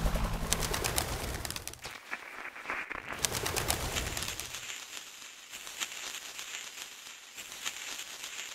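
Feral pigeons cooing over quiet outdoor ambience, as music fades out in the first second or two.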